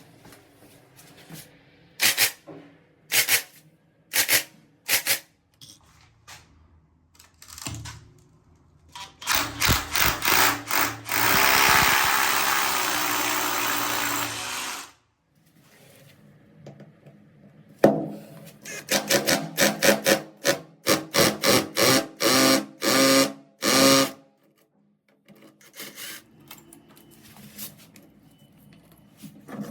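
Tool work on a metal installation frame: a few sharp knocks, then a power drill running steadily for about four seconds, then a quick series of short drill bursts.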